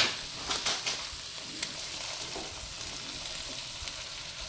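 A cream sauce with Brussels sprouts and bacon simmering in a nonstick skillet, a steady sizzling hiss. A few light clicks and scrapes come in the first two seconds.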